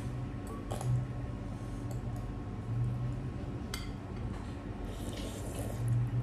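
A metal fork clinks against a glass bowl of pork thukpa noodle soup while noodles are lifted out, with one sharp clink in the middle. Near the end the noodles are slurped in a short wet burst.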